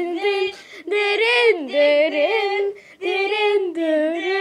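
A girl singing a wordless tune in several phrases of held, wavering notes, with short breaks between them.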